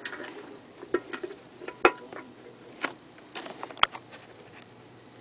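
Cast iron clicks and clanks from an 1880s J&E Stevens Mule Entering Barn mechanical bank as its mule figure is swung out of the barn and set. There are about half a dozen sharp metal clicks over the first four seconds, the loudest just under two seconds in.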